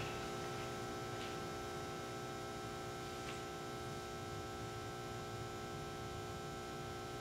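Steady electrical mains hum from the microphone and sound system, several fixed tones held without change, with faint ticks about a second in and again about three seconds in.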